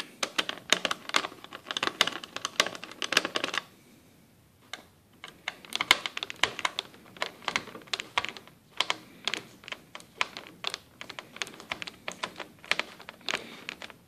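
Rapid, irregular small clicks and taps on the plastic underside of a Lenovo ThinkPad T61 laptop as its hard-drive cover screws are worked at. There is a pause of about a second around four seconds in.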